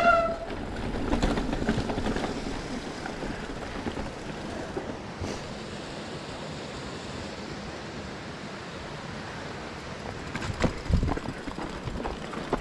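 Mountain bike riding down a rough dirt trail. A short, high disc-brake squeal comes right at the start, followed by a steady rush of tyre and wind noise, then a cluster of knocks and rattles from the bike over roots and rocks about ten seconds in.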